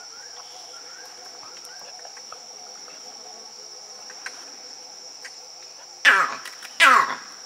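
Steady high-pitched insect drone, with two loud calls near the end that each sweep quickly down in pitch.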